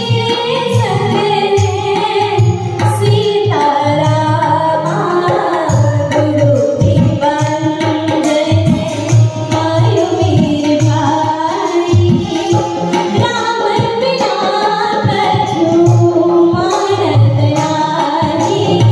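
Live devotional song (bhajan): a singer holding long, gliding notes, accompanied by keyboard and tabla.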